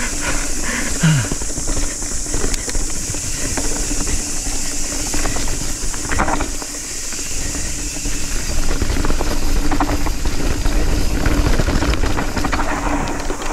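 Nukeproof Scout 275 hardtail mountain bike descending a rough, tight trail at speed: continuous tyre rumble, wind rush and the frame and components rattling over bumps.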